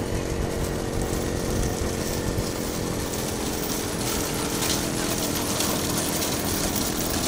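A small engine running steadily at speed close by, with a fast, even pulsing and a hiss of wind over it.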